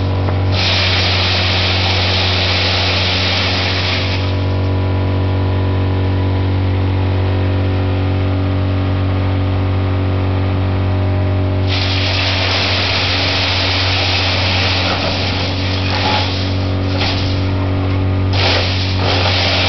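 Wood chipper running with a steady low hum. A harsh rushing noise rises over it for the first few seconds, drops away, and returns from about twelve seconds in, breaking briefly a few times near the end.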